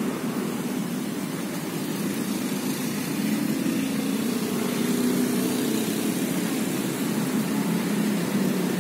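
A steady, low engine hum under a wide hiss of background noise. It grows slightly louder about halfway through, then eases off.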